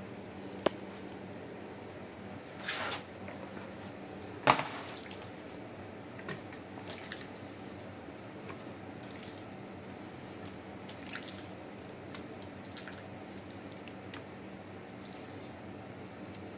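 Raw boneless chicken pieces being dropped by hand into a plastic food-chopper bowl: soft wet squishes and light knocks, with one sharper knock about four and a half seconds in. A faint steady hum runs underneath.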